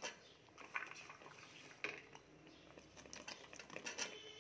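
Light, scattered clinks and taps of utensils against a cooking pan as chopped green beans are tipped into a simmering curry.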